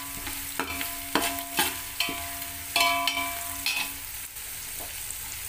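Oil sizzling in a metal pan while a metal slotted spoon stirs a tempering of mustard seeds, green chillies, garlic and curry leaves. The spoon clinks and scrapes against the pan several times, and some strikes leave a short metallic ring.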